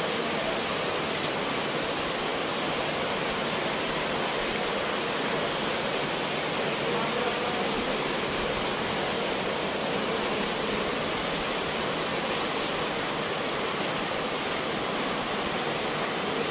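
Steady, even rushing of water with no separate events, from heavy rain over a street flooded with fast-flowing water.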